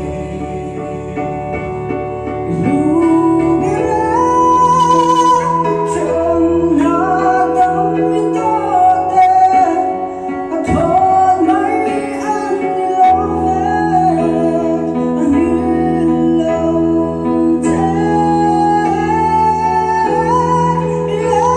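A vocal trio, a young woman and two young men, sings a Christian song through microphones over a steady instrumental accompaniment, the voices taking turns and joining.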